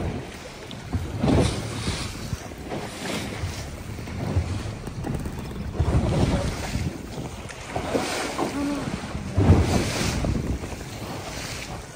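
Wind buffeting the microphone on a fishing boat in rough sea, with waves washing around the hull in uneven surges every few seconds.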